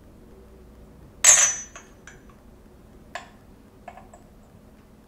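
Tiny ceramic and metal miniature cookware clinking as it is handled and set down on a miniature stove: one sharp, ringing clink about a second in, followed by a few lighter taps.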